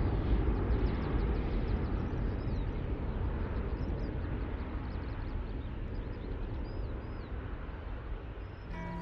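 Ultralight aircraft engine running, with heavy wind rush on the open cockpit's microphone as it rolls down the runway. The sound fades gradually.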